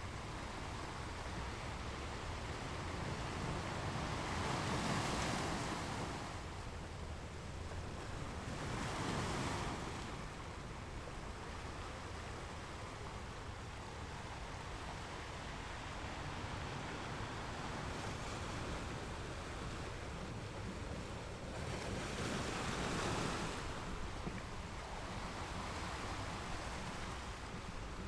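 Ocean waves washing onto a shore: a steady surf wash with a wave breaking and rushing up louder about five seconds in, again around nine seconds, and again near twenty-three seconds.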